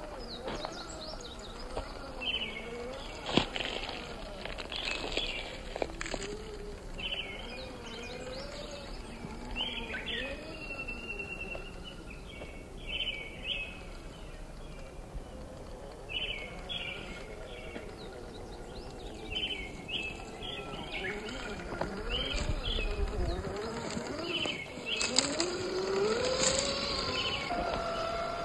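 Electric motor of an RC rock crawler whining, its pitch rising and falling with the throttle, with an occasional knock, the sharpest about three seconds in. Birds chirp in short repeated notes throughout.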